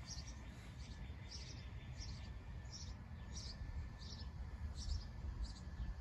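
A small bird chirping over and over, short high chirps a little under two a second, over a faint low rumble.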